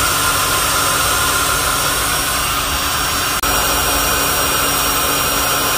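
Intex Quick-Fill electric air pump running steadily, blowing air to inflate an air mattress, with a brief dip about three and a half seconds in.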